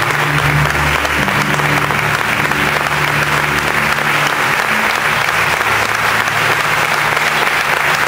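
Audience applauding steadily, with a few low held music notes underneath that fade out about halfway through.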